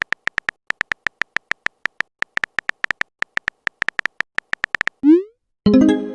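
A fast run of very short electronic beeps at one high pitch, about nine a second and slightly uneven. About five seconds in, a short rising electronic swoop is followed by a fuller synthesized tone that fades.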